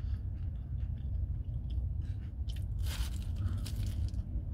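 A person biting into and chewing a crispy hash brown, with a few sharp crunches around three seconds in, over a steady low rumble.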